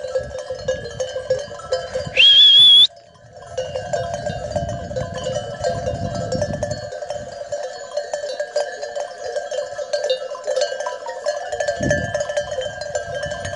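Many sheep bells clanking and ringing steadily across a grazing flock. About two seconds in, one loud, high whistle rises in pitch and holds for under a second.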